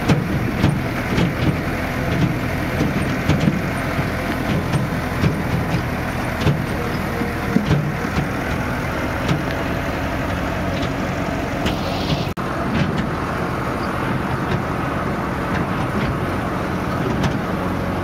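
Farm tractor's diesel engine running steadily while driving over a rough dirt track, with irregular knocks and rattles. The sound drops out briefly about twelve seconds in.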